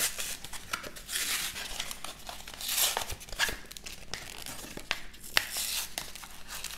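Cardboard backing of a Pokémon card blister pack being torn and peeled open by hand: crinkling and small clicks, with several short tearing rips.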